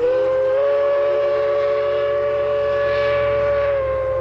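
Diesel locomotive's multi-chime air horn sounding a long held chord, starting abruptly. Its pitch dips slightly near the end.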